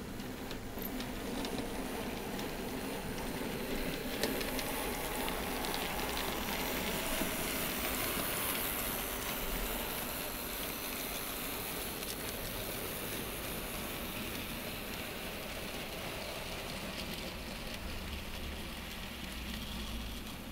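00 gauge model freight train, a WD Austerity steam locomotive and its vans, running along the track: a steady rolling rattle of small wheels on rails.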